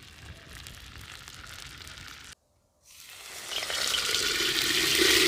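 Food sizzling in hot oil in a kazan. The sound cuts out briefly a little over two seconds in, then returns and swells to a much louder, steady sizzle.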